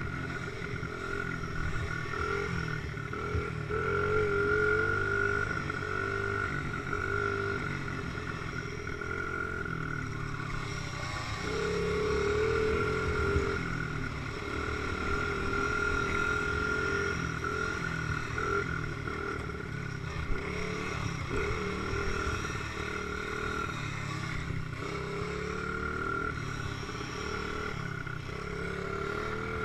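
Dirt bike engine running under way, heard from on board the bike, with the revs rising and falling.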